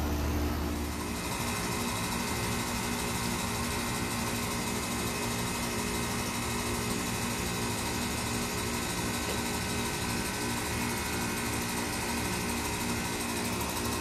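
Heat pump outdoor units running in defrost: a steady compressor hum with a higher whine over it. A deeper rumble stops about a second in.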